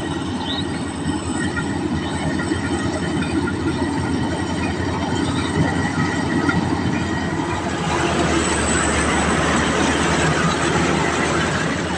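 Rice combine harvester running: a steady engine pulse under clattering machinery. It grows a little louder and noisier about two-thirds of the way through.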